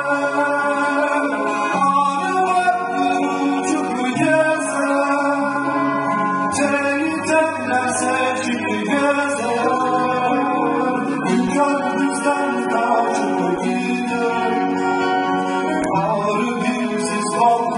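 Live male singing of a Turkish folk song with acoustic guitar accompaniment, in long held melodic lines over steady plucked chords.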